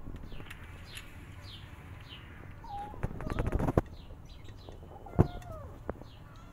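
Cats eating dry kibble from a paper plate: scattered crunching clicks, a denser clatter about three seconds in, and a sharp knock just after five seconds. A bird chirps repeatedly in the background, short high falling chirps about twice a second.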